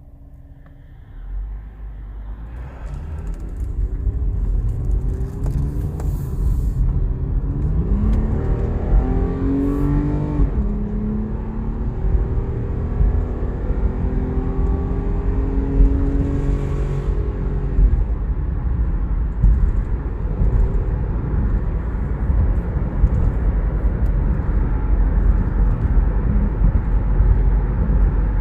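Subaru Tribeca's 3.0-litre flat-six engine accelerating under load: its pitch climbs, drops suddenly at a gear change about ten seconds in, holds steady for several seconds, then gives way to a steady low rumble of engine and road noise. The car feels down on power, which the mechanic suspects is a restricted rear catalytic converter.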